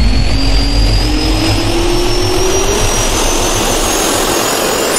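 Jet-turbine spool-up sound effect: a loud roar over a heavy rumble, with a whine that rises steadily in pitch.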